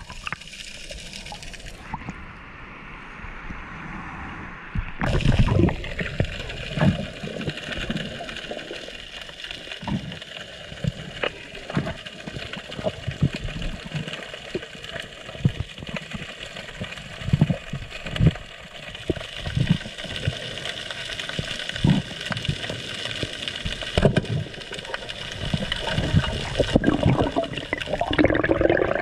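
Underwater sound picked up through a submerged action camera's housing: a steady rush of moving water with irregular low thumps throughout, muffled for a few seconds near the start.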